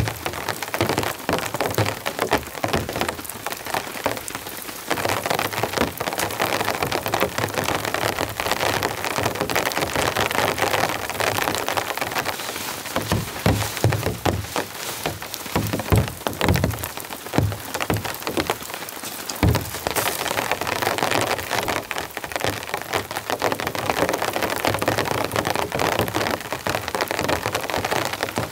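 Heavy rain falling steadily, a dense hiss of countless drops, with a few dull thumps about halfway through.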